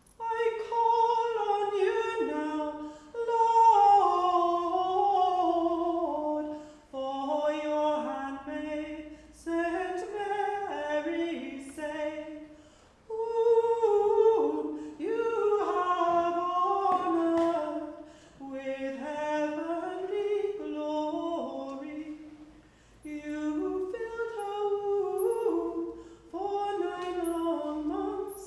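A woman's solo voice singing unaccompanied in a stone church: a slow, chant-like melody in short phrases separated by brief pauses, each phrase tending to step downward in pitch.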